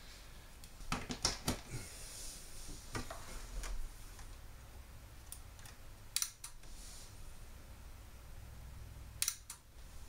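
Sharp clicks from inside an opened LG plasma TV as its board connectors are worked on: a quick cluster of clicks about a second in, then two close pairs of clicks about three seconds apart near the middle and the end.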